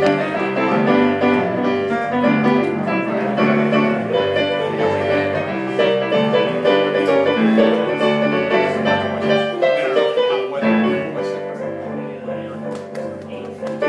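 Electronic stage keyboard played with a piano sound: an instrumental break of rhythmic chords and melody between sung verses, a little softer toward the end.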